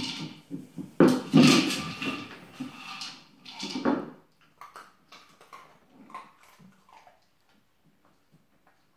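Hard plastic treat-dispensing toy knocked about on a wooden floor by two dogs: clattering over the first four seconds, then scattered lighter knocks and taps that fade out.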